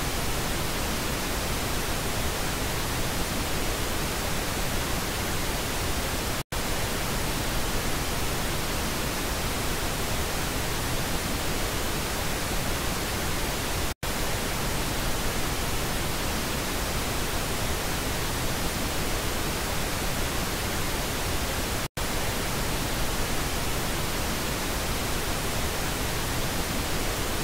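Pink-noise speaker test signal: a steady, even hiss across all pitches. Three brief silent gaps break it about every seven to eight seconds as it switches between the left and right stereo channels.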